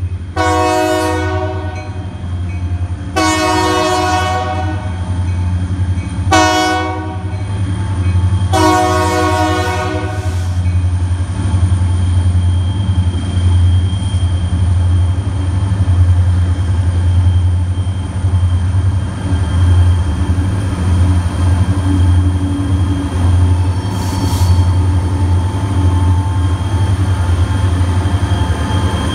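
Freight locomotive air horn sounding the grade-crossing signal, long, long, short, long, over the steady low rumble of the approaching diesel locomotives. The GP40-2 and SD40-2 diesel locomotives then pass close by, hauling a heavy train of loaded sand cars.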